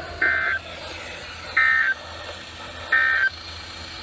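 Three short bursts of Emergency Alert System SAME data tones on a weather radio, about 1.3 seconds apart. Each burst is a rapid two-tone digital code, the end-of-message signal that closes the severe thunderstorm warning. Steady radio hiss underneath.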